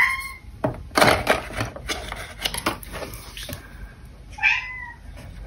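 Folded cardstock being handled on a cutting mat: paper rustling and crackling with scattered clicks, the loudest crackle about a second in. A short chirp-like squeak comes near the start and another about four and a half seconds in.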